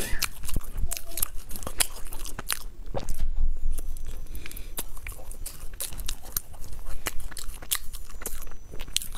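Mouth-close chewing and biting of a soft baked bread roll topped with meat floss, full of quick wet clicks and light crackles, a little louder and denser about three seconds in.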